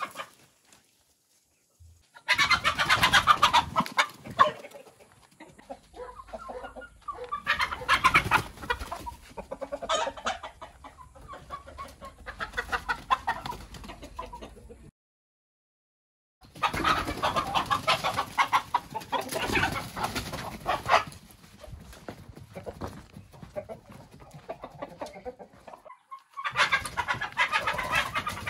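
Roosters and hens clucking and squawking in repeated loud bursts, with two brief dead-silent breaks between them.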